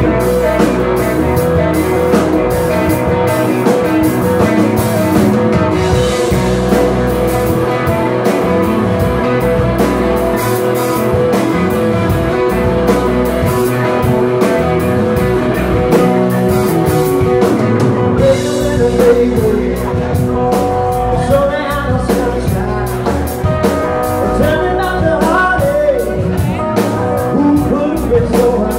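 Live rock band playing loud: electric guitars over a drum kit.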